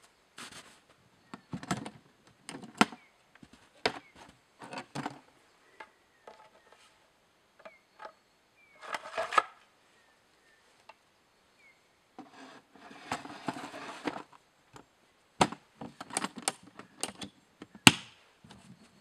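Footsteps crunching in snow, with a series of knocks and scrapes as a chainsaw is lifted off a wooden stump and packed into a wooden carrying case. One sharp knock comes near the end.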